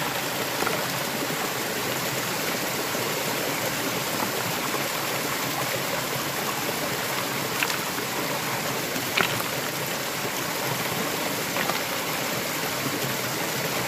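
Shallow rocky mountain stream splashing steadily over stones below a small cascade, with a few light clicks now and then.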